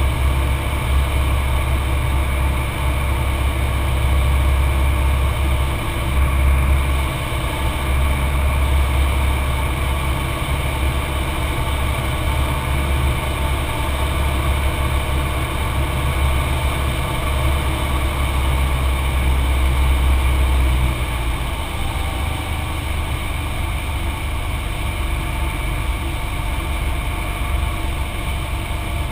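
Cessna 182's piston engine and propeller droning steadily, heard inside the cockpit with a constant rush of airflow. The deep drone eases off about two-thirds of the way through.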